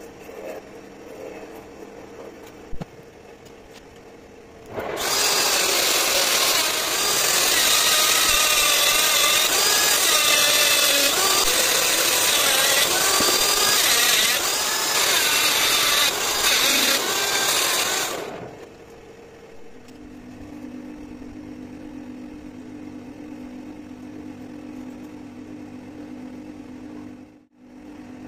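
A pink mounted grinding stone grinding steel on a lathe, throwing sparks: a loud grinding hiss with a wavering whine that starts about five seconds in and stops about thirteen seconds later. Before and after it, a motor hums steadily.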